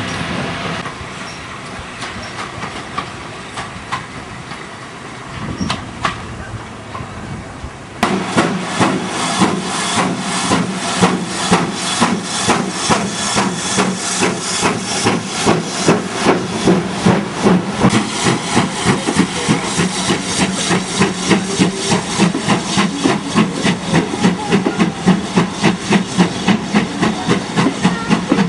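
Steam locomotive working hard as it pulls away with its train, its exhaust beating in a quick, steady rhythm of chuffs with hiss between them. This starts suddenly about eight seconds in, after the low rumble of a passing train's coaches.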